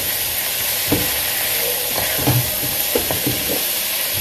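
Food sizzling in a hot pan: a steady hiss with a few light knocks and scrapes of a utensil stirring it.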